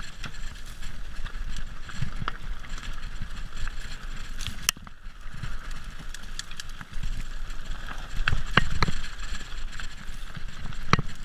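Mountain bike ridden over a rough dirt and loose-stone trail: tyres rolling on the ground, with the chain and frame rattling and sharp knocks over bumps. The clatter is loudest about eight to nine seconds in, with one hard knock near the end.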